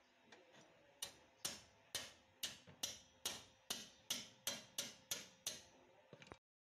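A run of about a dozen sharp metallic clicks, roughly two to three a second and speeding up slightly, from hand work on a car's rear wheel hub. The sound cuts off suddenly near the end.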